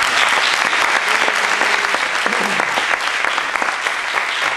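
Church congregation applauding loudly and steadily.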